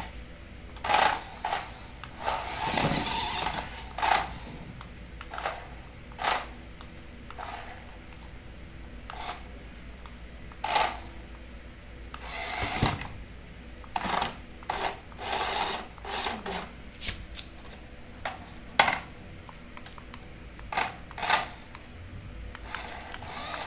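Remote-control toy car's small electric motor and gears whirring in about twenty short spurts, most under a second long, as the car is driven in stops and starts.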